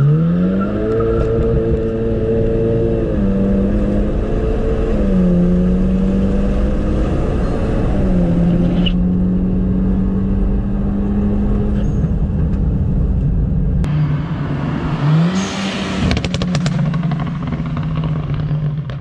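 Remapped Volkswagen engine under way on a test drive, its pitch rising at the start, then dipping and recovering a few times. Near the end comes a run of sharp crackles, the pops added by the tune.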